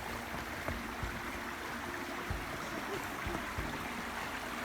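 Steady rush of flowing water from the falls' creek, with a few short low thumps.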